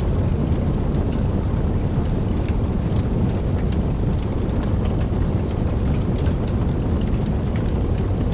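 Wood campfire burning, with a steady low rumble of the flames and frequent small, irregular crackles and pops.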